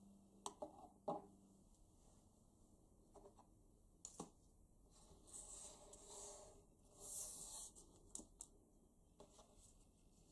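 Faint rustling and creasing of folded origami paper being handled and pressed on a wooden tabletop, with a few light taps and clicks.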